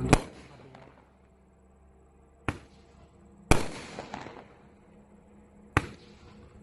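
Bright Star 'Pool party' BS8026 consumer firework going off: four sharp bangs a second or two apart, the first and third the loudest, each loud one trailing off in a short crackle.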